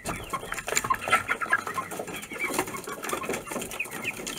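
Young chickens scrambling out through a small wooden coop hatch: a busy patter of claws scratching and wings brushing on wood, with many short high chirps. The hatch clatters open right at the start.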